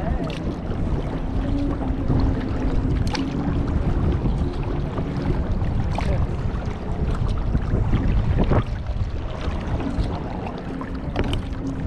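Kayak paddling on open water: wind rumbling on the microphone over paddle splashes, with a few sharp knocks or splashes.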